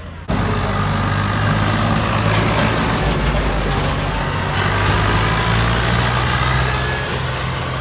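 Swaraj 855 tractor's diesel engine running loud and steady under load while reversing a trolley.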